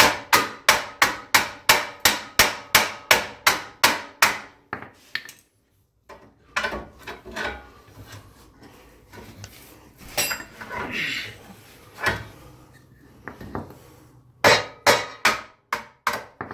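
Hammer striking the front steering knuckle in a fast run of about fifteen blows over four seconds, then scattered knocks and a short run of three or four blows near the end. This is the work of knocking a stuck ball joint loose from the knuckle.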